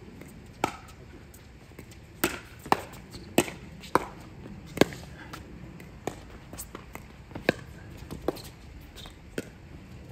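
Pickleball rally: sharp pops of paddles striking the hard plastic ball, with the ball bouncing on the court, about a dozen hits at irregular intervals, some in quick back-and-forth exchanges, the loudest about five seconds in.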